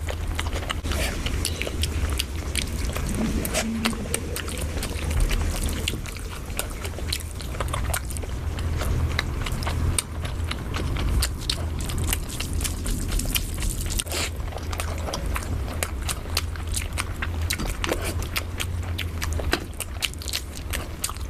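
Close-miked eating: loud wet chewing and biting of rice and chicken, with many small clicks and smacks throughout over a heavy low rumble of mouth noise.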